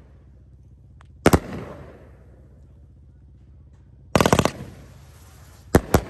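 Standout 27-shot consumer firework cake firing. A sharp bang comes about a second in, a quick cluster of bangs about four seconds in, and two more in close succession near the end, each trailing off.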